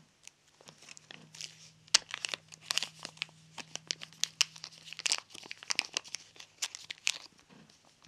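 Small clear plastic bag crinkling and crackling in the hands as it is opened to take out a wooden reel knob, in a long run of irregular sharp crackles that stops near the end.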